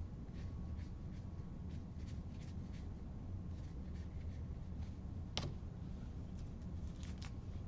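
Baseball trading cards being thumbed through one after another in the hands, each card giving a soft flick or tick, with one sharper click about five seconds in, over a steady low hum.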